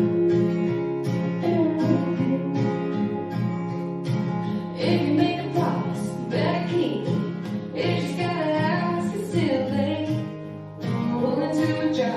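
Country-pop song played back: strummed acoustic guitar and band with a woman singing.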